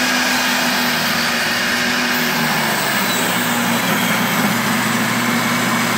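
Porter-Cable jobsite table saw running at speed while ripping a board stood on edge lengthwise through the blade. It is a loud, steady motor-and-blade whine whose low hum shifts slightly about halfway through.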